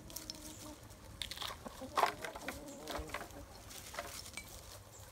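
Chickens scratching and pecking through dry leaf litter: a busy string of short rustles and clicks, with soft clucking mixed in, loudest around two seconds in.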